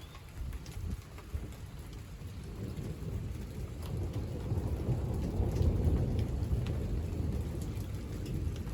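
Thunder rumbling during a rainstorm: a low, deep rumble builds from about two and a half seconds in, peaks a little past the middle, then eases off, while rain falls with scattered drops ticking.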